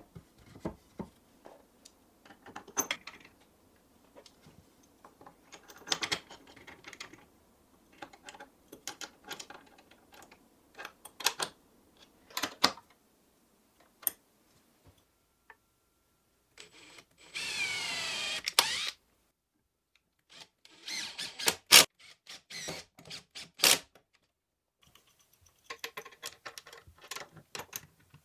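Hand assembly of a wooden frame: scattered knocks and clicks of wooden parts and bolts being handled and fitted, with a continuous rasping sound about a second and a half long just after the middle. Near the end, a run of quick fine clicks as a ratchet wrench tightens a bolt.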